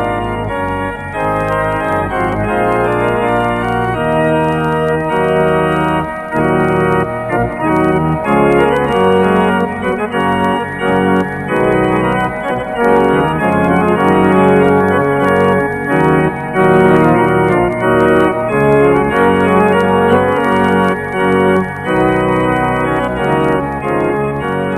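Instrumental background music: slow, sustained organ chords that shift every second or two.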